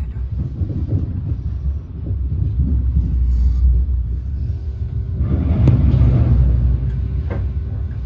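Passenger train running along the tracks, heard from inside the carriage as a steady low drone. About five seconds in it grows louder and harsher for a second or so, with a couple of sharp clicks.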